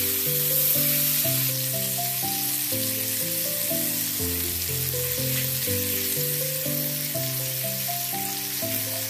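Chicken breast fillets sizzling steadily in melted margarine in a nonstick frying pan over low heat. Background music with a simple melody of held notes plays underneath.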